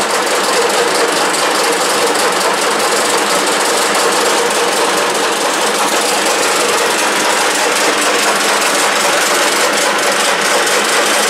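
Soviet 1K62 screw-cutting lathe running steadily, its gearbox and spindle making a constant mechanical whirr.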